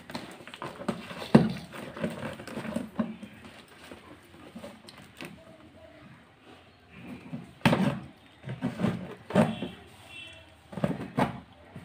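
Clear plastic packaging crinkling and rustling as it is handled, with scissors cutting through the plastic wrap and packing tape. Sharp, louder crackles come about a second in and several times in the second half.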